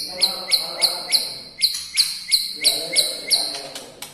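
White-rumped shama (murai batu) singing a fast run of sharp, repeated high notes, about three a second, with a short break about one and a half seconds in. A fainter, lower warble sounds under parts of the run.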